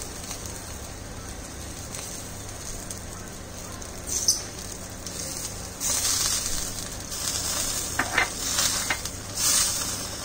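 Tandoori chicken pieces sizzling on the hot wire rack of a gas tandoor as oil is brushed over them, the sizzle flaring louder several times.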